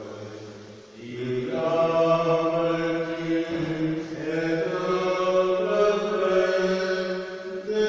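A man's voice chanting a slow liturgical melody in long, held notes, with short breaks between phrases about a second in and again a little past the middle.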